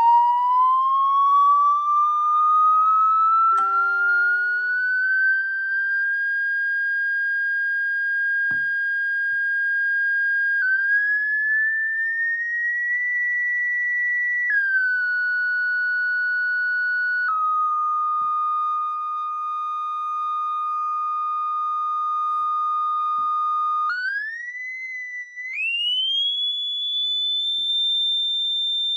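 A single electronic test tone with faint overtones, played through a Samsung Galaxy Z Fold 3's speakers. It glides up over the first few seconds and holds. It then slides higher and drops in two steps to a lower held note, and near the end it climbs in two steps to a high steady tone.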